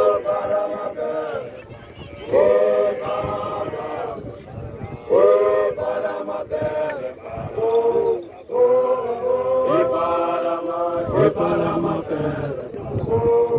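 A group of young Basotho male initiates (makoloane) singing an initiation chant together in unison. It comes in short phrases that start again every two to three seconds.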